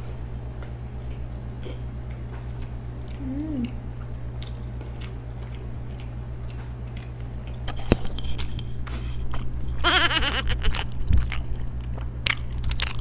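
Close-miked chewing and biting of soft burgers over a steady low electrical hum. There is a short hummed "mm" about three and a half seconds in. Near the end come clicks and rustles as a clip-on lapel microphone is handled.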